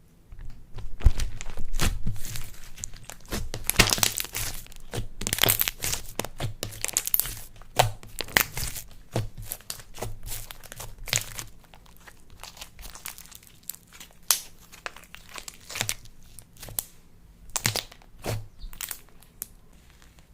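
Slime being squeezed and worked by hand, crackling and crinkling in a dense run of sharp pops that thin out toward the end.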